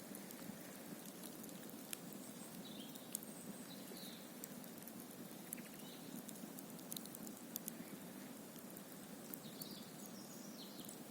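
Campfire crackling, with sharp irregular pops and snaps over a steady low rushing background. A few faint high chirps come through about three and four seconds in and again near the end.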